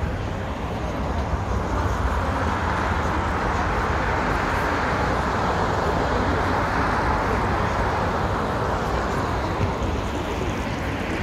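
Outdoor traffic noise that swells toward the middle and eases off again, as of a vehicle going past.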